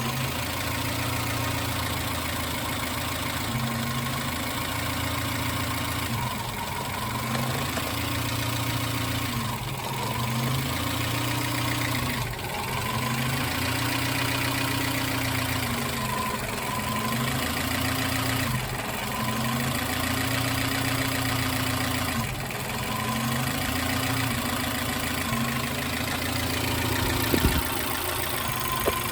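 Suzuki X-90's 1.6-litre four-cylinder engine idling with a misfire, its note swelling and dipping in a slow, even cycle about every three seconds. A couple of sharp clicks near the end.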